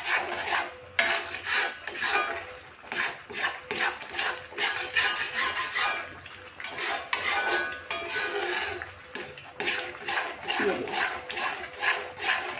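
Metal spoon-spatula scraping and stirring thick grated-carrot halwa in a kadhai, in quick repeated strokes against the pan's sides and bottom, as the watery sugar is cooked down.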